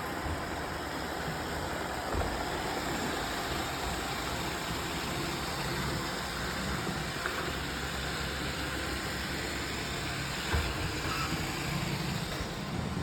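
Roomba robot vacuums running, a steady motor and brush whir, with a couple of faint knocks about two seconds in and again near the end.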